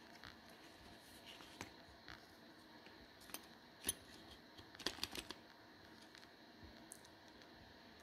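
Near silence broken by a few small, sharp clicks and taps, the loudest about four seconds in and a quick cluster of them about a second later. They are the plastic and metal parts of a removed Saab 900 trunk handle assembly being handled.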